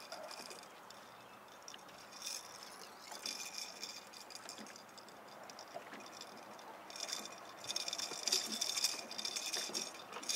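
Fishing reel being cranked, a fast clicking rattle that comes in short spells and then a longer, louder spell about seven seconds in, as a snagged catfish is reeled in on a bait rod.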